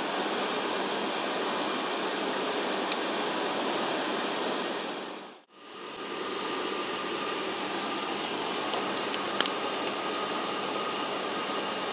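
Steady cabin noise of an ATR turboprop airliner in cruise flight, a dense even rush of propeller and airflow noise. It fades out briefly about halfway through and comes back with a faint steady tone added, and a single sharp click near the end.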